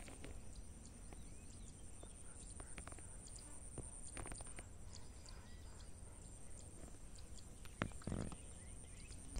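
Faint field ambience: a low wind rumble, a thin high steady whine that stops about halfway through, and a few soft rustles and steps in grass, the loudest a little before the end.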